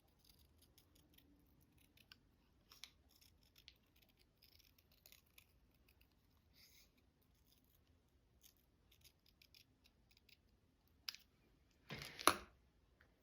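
Quiet paper-crafting sounds: small scattered clicks and scratches of paper being handled, then a short, louder snip of scissors cutting paper near the end.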